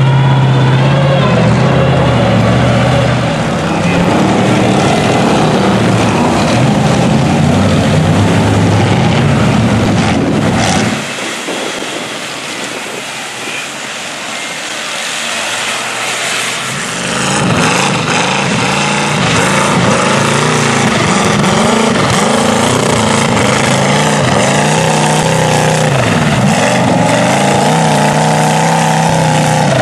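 Mud truck engines. First a lifted mega truck on tractor tires runs with a steady, loud engine note. After a quieter stretch, a mud truck's engine revs hard, its pitch rising and falling again and again as it drives through the mud pit.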